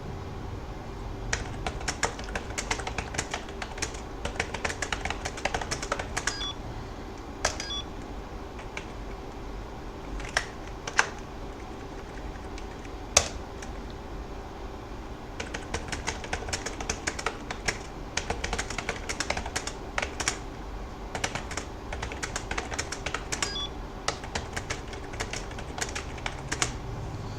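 Computer keyboard being typed on, keys clicking in quick runs with a couple of short pauses and one louder single keystroke in the middle.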